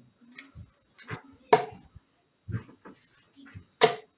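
Darts striking a Winmau Blade 6 sisal bristle dartboard: two loud thuds, about 1.5 and 3.9 seconds in, with softer knocks between them.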